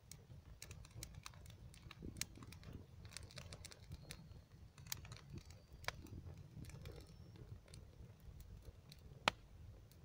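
Small fire of dry grass and twigs crackling: irregular sharp crackles and pops, the loudest pop about nine seconds in.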